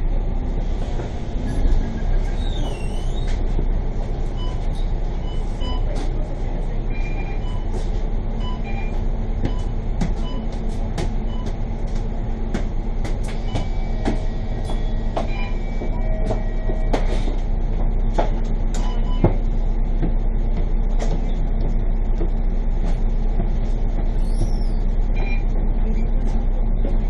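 Bus engine idling with a steady low hum while the bus stands at a stop, heard from on board, with scattered light clicks and a few faint high chirps over it.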